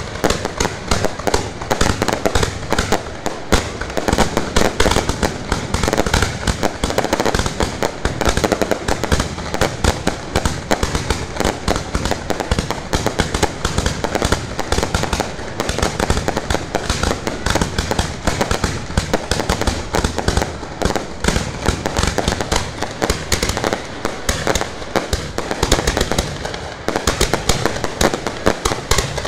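Aerial fireworks fired at close range from ground launch tubes: a dense, unbroken barrage of launch bangs and crackling bursts, many every second.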